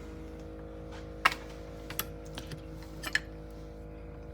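A few sharp, light clicks and taps of kitchen utensils and containers, the loudest about a second in, over a steady low hum.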